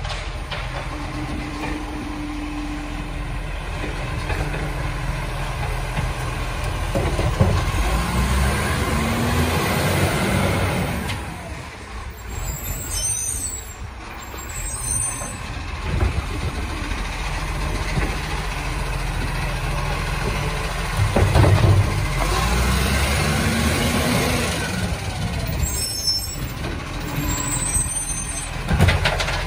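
Side-loading garbage truck's diesel engine running as its hydraulic arm lifts and empties wheelie bins. Twice the pitch rises as the engine and hydraulics work harder, and there are short hisses of air brakes as the truck stops and moves off.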